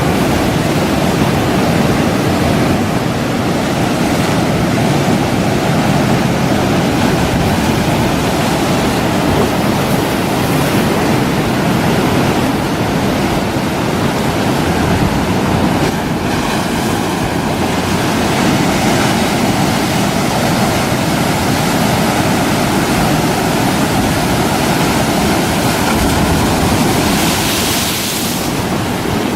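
Strong wind and rough waves ahead of an approaching typhoon: a loud, steady rushing, with a brief higher hiss shortly before the end.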